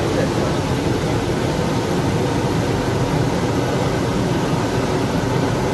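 Steady, loud rushing noise of commercial kitchen equipment that does not change.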